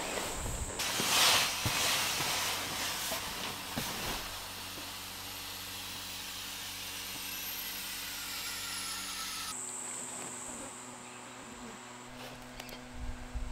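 Tent fabric rustling as it is handled, then a steady hiss of air escaping from an air mattress being pressed flat to deflate, with faint whistles falling in pitch. About nine and a half seconds in the hiss cuts off and a steady hum with a high whine takes over.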